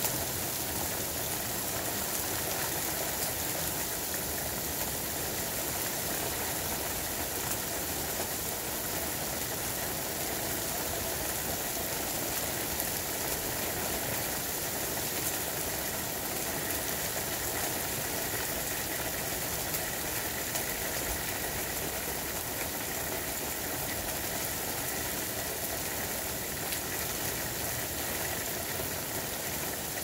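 Heavy rain pouring steadily onto pavement, lawns and parked cars, an even hiss with no break.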